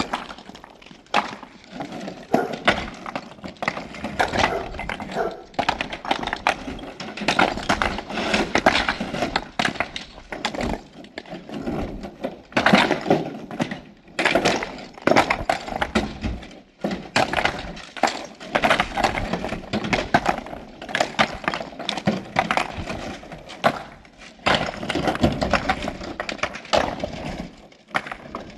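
Stone cladding pieces knocking and clattering against one another in many irregular knocks as they are handled and stacked.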